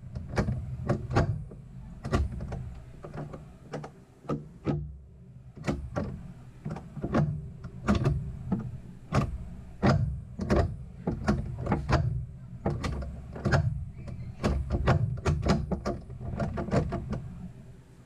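Bimmerworld tunnel-mount shifter on a BMW E46 being worked through the gears, heard from under the car: a string of irregular metallic clicks and clunks from the shift rod and linkage, with a short pause about four seconds in.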